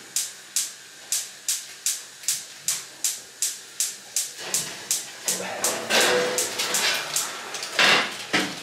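Gas cooker's grill igniter clicking over and over, about two and a half clicks a second, as the grill is lit. A rushing hiss joins the clicks about halfway through, and there is a loud burst near the end.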